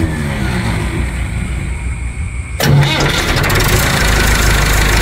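Massey Ferguson MF 188 tractor's four-cylinder diesel engine being started: it catches suddenly and loudly about two and a half seconds in, then settles to steady running at idle.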